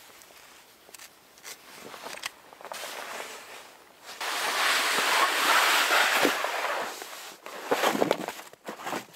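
A loud rustling, crunching noise lasting about three seconds, then split firewood logs clattering and knocking against each other as they are tipped from a carrier bag onto a log pile.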